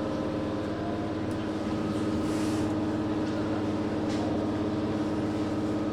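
Vehicle's diesel engine idling steadily.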